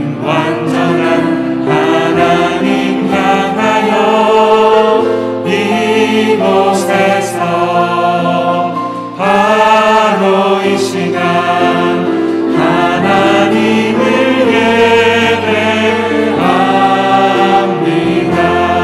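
Contemporary Christian worship song sung in Korean by a group of singers on microphones, backed by acoustic guitar and keyboard. The sung line breaks briefly about halfway through, then the group comes back in.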